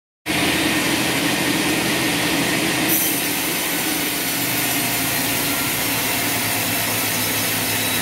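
Large horizontal band sawmill running and cutting through a hardwood log, a steady saw-and-motor noise with a hum underneath. A short click comes about three seconds in, after which the sawing sound eases a little.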